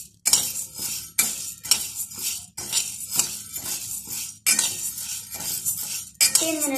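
Dry whole urad dal rattling and scraping against a steel pan as it is stirred with a metal spatula during dry-roasting, in shaker-like sweeps about once a second.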